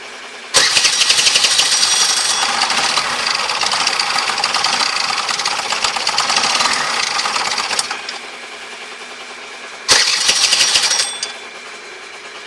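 Honda Gyro scooter engine running at idle, revved hard twice: a long burst of about seven seconds starting half a second in, and a short one of about a second near the end, each with a harsh, high-pitched noise. The owner wonders whether this abnormal noise is piston ring noise.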